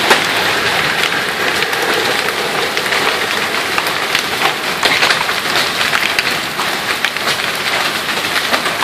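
Hailstorm: heavy rain falling steadily, with many sharp clicks of hailstones striking hard surfaces.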